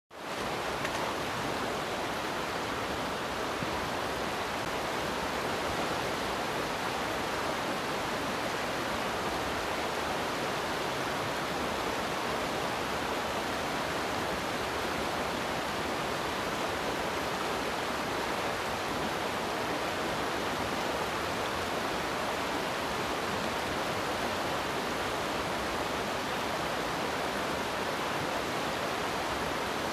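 Fast river water rushing steadily over rocks and riffles.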